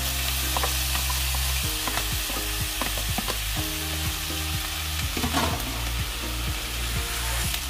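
Fried rice and fresh spinach sizzling in a skillet while a spatula stirs and scrapes through them, with repeated short clicks of the spatula against the pan and a louder scrape about five seconds in.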